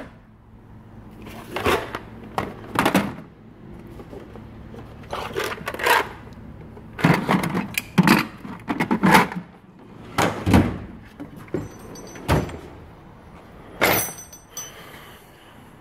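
Hard plastic tool-kit cases being shuffled and knocked together in a metal tool chest drawer: about a dozen irregular clunks and clatters, with a sharper clatter near the end.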